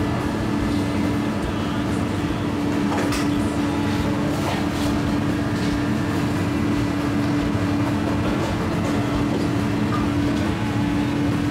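Steady drone of commercial kitchen machinery, a constant hum with one even tone over a low rumble, with a few light knocks of kitchen work.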